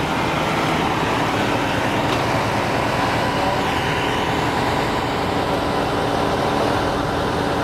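Seagrave fire apparatus's diesel engine idling steadily at close range.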